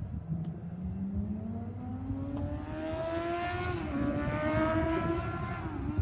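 A road vehicle's engine accelerating, its pitch rising steadily, dipping briefly about four seconds in as if changing gear, then climbing again.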